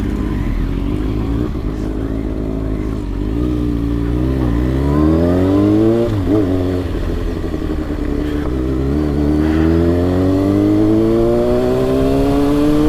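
Kawasaki ZX-6R 636 inline-four engine pulling away and accelerating: the revs waver, drop briefly near the middle, then climb steadily and smoothly.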